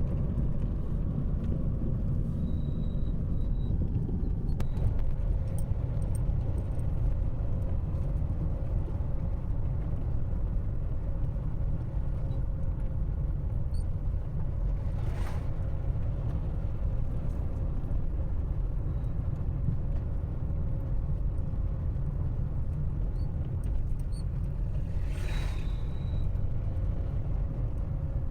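Steady low rumble of a car in motion, with a faint steady hum over it and two brief whooshes, one about halfway through and one near the end.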